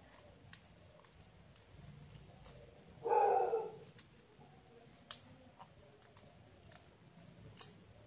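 Paper being folded and creased by hand: faint crinkling, with two sharp snaps of a crease near the middle and near the end. Louder than the folding is one short pitched animal call in the background about three seconds in.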